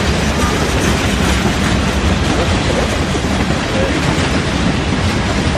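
Covered grain hopper cars of a freight train rolling past: a steady, loud rumble with the wheels clattering over the rails.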